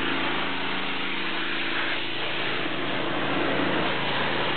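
Pressure washer running steadily: an even hiss over a steady low motor hum.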